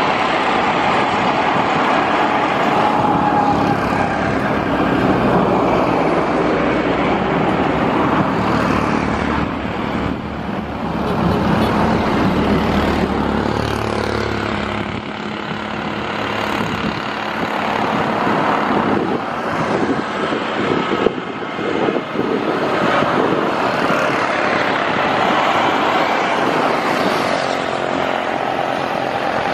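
Bombardier Dash 8 Q400 turboprop's Pratt & Whitney PW150A engines running at taxi power: a steady propeller drone with a high turbine whine, a little weaker in the middle and stronger again near the end.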